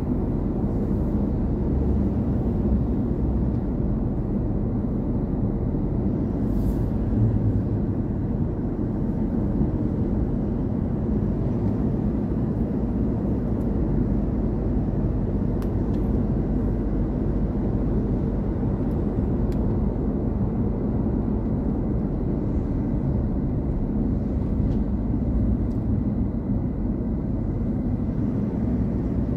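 Steady low road and engine rumble of a car cruising at an even speed, heard from inside the cabin.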